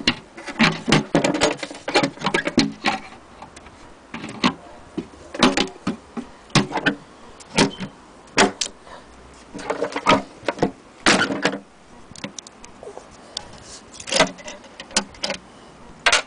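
Wooden cover of an antique hand-crank sewing machine being handled: irregular knocks, clunks and short rattles, some in clusters and some about a second apart.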